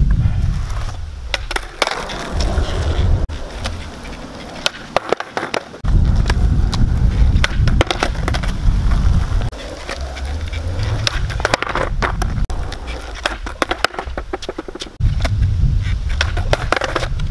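Skateboard wheels rolling over rough asphalt in several separate runs, with sharp clacks and knocks of the board's tail and deck hitting the ground during kickflip attempts.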